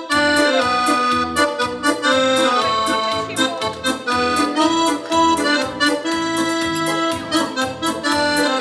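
Electronic keyboard dance music starts suddenly: an accordion-like melody over a steady bass and drum beat.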